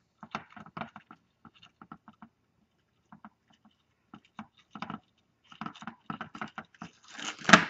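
Hands handling ribbon and thin bow wire in a plastic bow-making tool: a run of short rustles, crinkles and light clicks, thinning out in the middle and growing busier and louder near the end.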